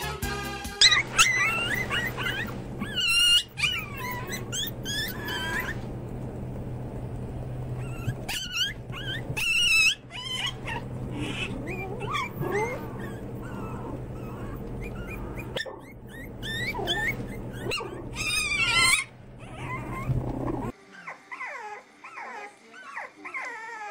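A litter of fluffy white spitz-type puppies yipping and barking in high-pitched clusters over a steady low hum. Near the end it changes to quieter whimpering and squeaking from young French bulldog puppies.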